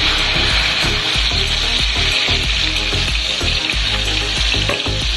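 Wet ground spice paste sizzling steadily as it is poured into hot oil in a wok, the sizzle starting suddenly as the paste hits the oil.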